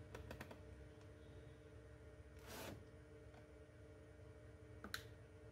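Near silence with a faint steady hum, broken by a few light clicks near the start, one short scrape about halfway through and a sharp click near the end, as a screwdriver and the plastic laptop case are handled.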